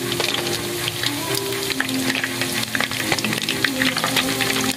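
Flour-coated chicken intestines deep-frying in hot oil in a wok: a steady, dense sizzle full of sharp crackles and pops.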